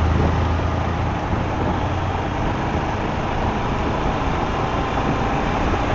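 Riding noise from a Royal Enfield Himalayan BS6 on the move: the 411 cc single-cylinder engine running under steady wind and road noise, with traffic around it.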